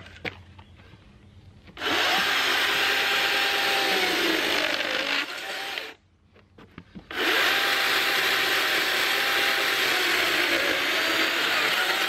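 DeWalt electric chainsaw cutting through a 6x6 timber in two passes. The motor runs up about two seconds in and cuts for about four seconds, its pitch sagging as the chain bites deeper. It stops dead, then starts again a second later for a second cut. Between cuts there is no idle.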